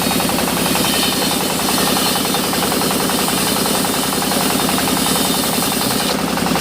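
Sawmill machinery running loudly and steadily, with a fast even throbbing pulse under a constant hiss.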